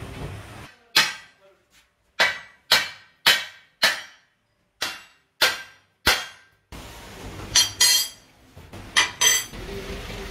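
Hammer blows on a steel truck rim, each strike ringing and dying away: about eight blows in the first six seconds, then a few sharper clanks over background noise near the end.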